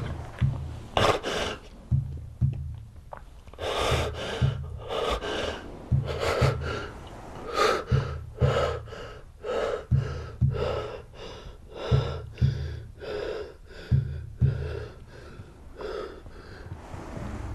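A man breathing hard in loud, ragged gasps through an open mouth. The gasps come about once a second at first and quicken to about twice a second.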